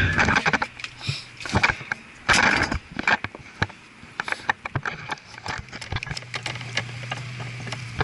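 Irregular sharp metal clicks and knocks from hand tools working copper refrigerant tubing, with a short scraping hiss about two seconds in, over a steady low hum.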